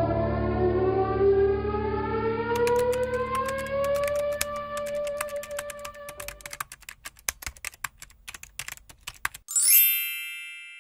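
Title-card sound effects: a rising, siren-like wail over a low drone fades out about six seconds in, while typewriter keys clatter as the text types on from about two and a half seconds in. Near the end a bright bell ding, the loudest sound, rings and fades.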